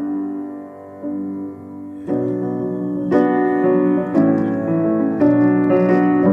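Piano playing slow, sustained chords. About two seconds in, fuller chords begin, struck roughly once a second and growing louder.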